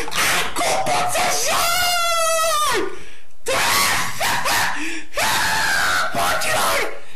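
A boy screaming and yelling in rage, loud and harsh, with one long wavering scream about two seconds in and a brief break just after.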